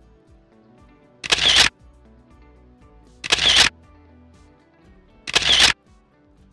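Background music with a camera-shutter sound effect three times, about two seconds apart, each much louder than the music.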